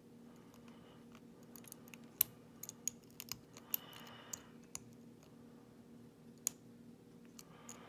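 Lock picks working the pins of a pin-tumbler lock: irregular sharp metallic clicks, with a short scrape about four seconds in.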